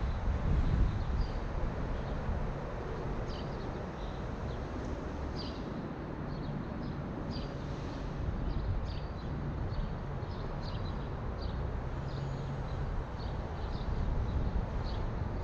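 Low steady rumble of a car driving slowly on city streets. Birds chirp over it in many short, high notes.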